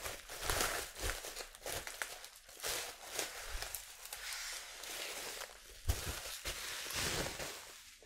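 Bubble-wrap packaging and plastic sleeves crinkling and rustling in irregular bursts as handfuls of packets are slid out, with a soft knock about six seconds in as packets are set down on a wooden desk.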